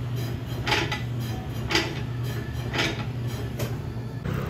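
Electric rotary-blade meat slicer running with a steady motor hum, cutting meat with a short sharp stroke about once a second, four times.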